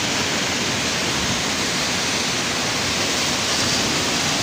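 Sea surf washing against a rocky coast, a steady, even rush of noise that does not swell or pause.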